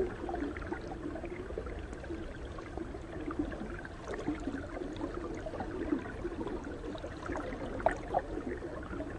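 Quiet water ambience: a soft, steady gurgling wash dotted with small ticks and clicks.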